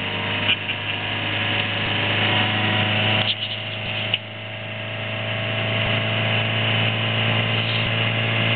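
Toyota Hiace's diesel engine labouring under load as it tows a trailer uphill: a steady drone that slowly grows louder. A short stretch of clicks and rattle comes a little after three seconds in, and then the drone builds again.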